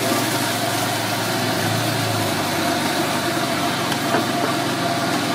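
Steady, unchanging engine-like rumble with a low hum and a hiss.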